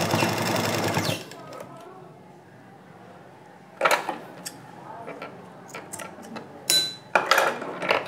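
Black domestic straight-stitch sewing machine running a quick burst of stitches, stopping about a second in. A few short rustles and clicks follow as the red fabric and lace are handled.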